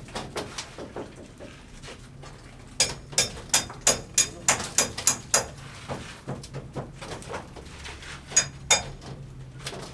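Construction tool work: a quick run of sharp, ringing strikes, about three a second for some two and a half seconds, then a pause and two more strikes near the end.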